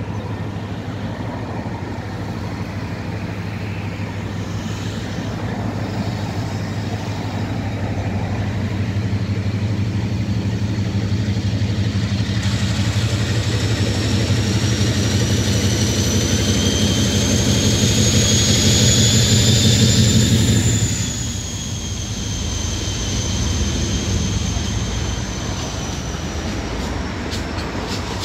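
Class 56 diesel locomotive 56091 thrashing under full power as it pulls away with a train, its Ruston-Paxman V16 engine drone growing louder, with a high turbocharger whistle rising and falling over it. About three-quarters of the way through the engine sound drops off suddenly as the locomotive passes, leaving empty box wagons rolling by on the rails.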